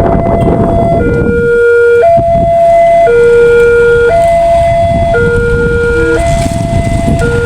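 New warning siren at a railway level crossing, sounding a two-tone high-low alarm that switches pitch about once a second, the signal that a train is coming and the barriers are closing. A steady low rumble runs underneath.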